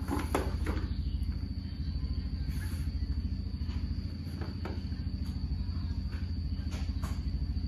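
Steady low mechanical drone with a thin high whine, typical of a rack router's cooling fans running, broken by a few light knocks and clatters near the start, about two-thirds through and near the end.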